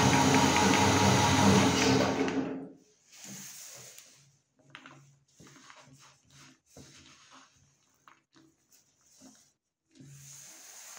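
Electric meat grinder running steadily while it extrudes chocolate, then switching off about two and a half seconds in. After it, faint scattered rustles and crumbling as a hand rubs and scoops the ground chocolate bar pieces on a plastic plate.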